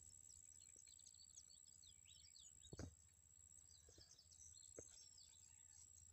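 Faint bird chirping over near silence: a string of short high calls, thinning out after about four seconds, with a couple of soft clicks.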